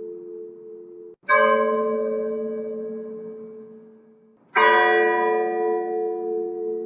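A single church bell tolling slowly for a funeral: two strikes about three seconds apart, each ringing on and slowly fading. The ring sounding beforehand cuts off suddenly just before the first strike.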